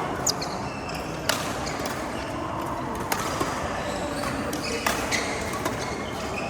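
Badminton rackets striking a shuttlecock during a rally: about five sharp cracks, roughly one every second and a half, over steady sports-hall background noise.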